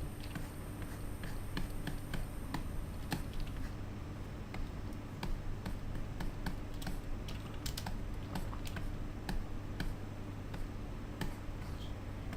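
Computer keyboard keys clicking irregularly, a few presses at a time, over a steady low hum.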